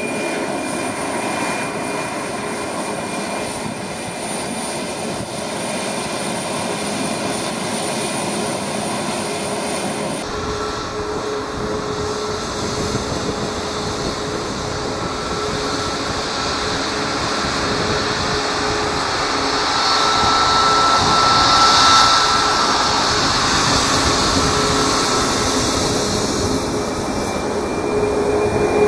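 Boeing 737 MAX 8's CFM LEAP-1B turbofan engines running at taxi power: a steady jet roar with a whine on top. The sound changes abruptly about ten seconds in, then grows louder as the jet rolls closer.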